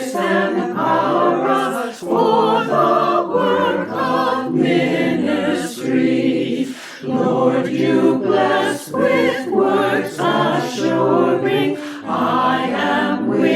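Church choir singing a hymn in several voices, sustained notes with vibrato and short breaths between phrases.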